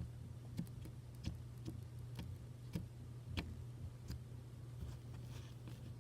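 Slime and its plastic container being handled: faint, scattered small clicks and pops, about one a second, over a steady low hum.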